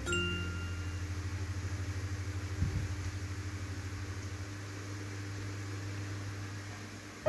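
Small electric toy fan with a plastic propeller running: a steady low motor hum with a fast, even pulsing as the blades spin.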